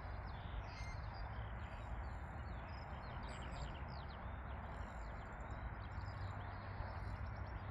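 Small birds chirping in quick short calls over a steady low outdoor background noise.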